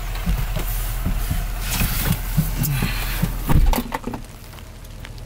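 A pickup truck door standing open as a person climbs in onto the seat with rustling, then the door shutting with a heavy thud about three and a half seconds in, over a low steady hum.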